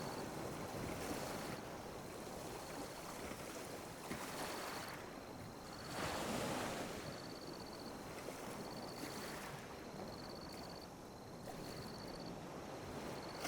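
Small ocean waves lapping and washing on a beach in slow surges, the largest wash about six seconds in. A short high chirp at one steady pitch repeats about once a second over the water.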